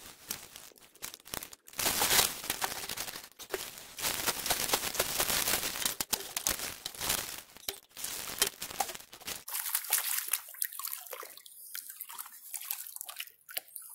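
Water and gravel sloshing and grinding in a plastic gold pan being shaken and dipped in a creek to wash off the light material. About nine and a half seconds in it gives way to quieter, lighter splashing.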